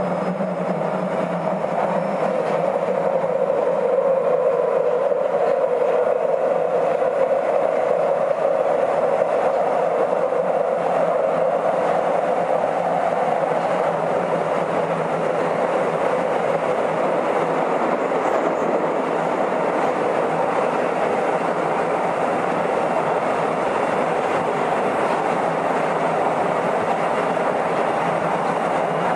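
Nagoya Municipal Subway 2000-series car, retrofitted with IGBT inverter controls, running between stations: a steady rolling noise with a constant low hum, and a broad tone that sags a little in pitch early on and rises again later.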